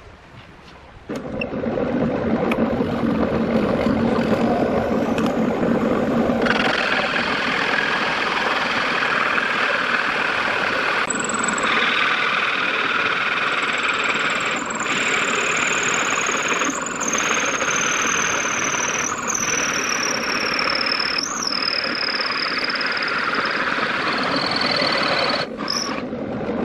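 Electric hand drill running continuously under load, a steady rough noise with a high motor whine that slowly falls in pitch. It starts about a second in, turns brighter and harsher about six seconds in, and cuts off near the end.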